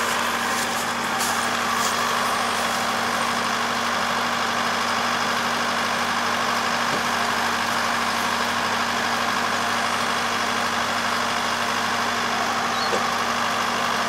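Kubota ER470 combine harvester running with a steady drone as it works through rice; the level and pitch hold even throughout.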